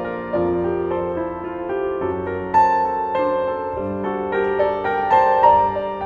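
Soft background piano music, a slow melody of sustained notes.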